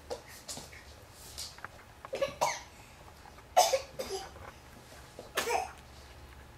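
A person coughing: three short coughs spread over a few seconds, over a faint low room hum.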